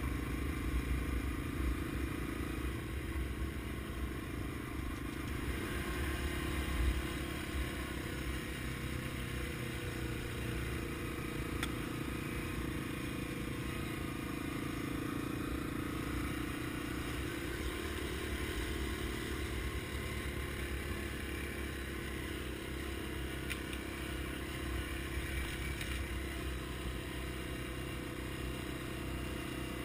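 Yamaha TW200's single-cylinder four-stroke engine running steadily while riding along a sandy dirt trail, with the occasional light clatter from the bike over the bumps.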